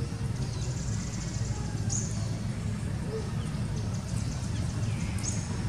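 Outdoor ambience: a steady low rumble with two brief high bird chirps, one about two seconds in and one near the end.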